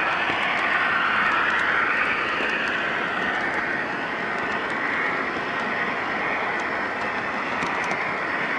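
Three-rail O scale model train running along its track: a steady whir of the locomotive motor and gearing with the wheels rolling on the rails, a faint wavering whine in it, and a few light clicks near the end.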